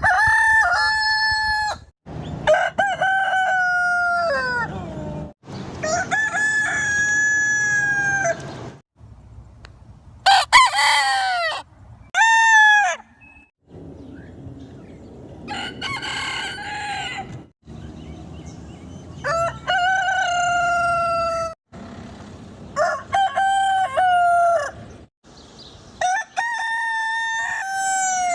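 Roosters crowing, one cock-a-doodle-doo after another, about eight crows, each lasting one to two and a half seconds and dropping in pitch at its tail. The crows come as separate clips with abrupt cuts between them, and each is set against a different background.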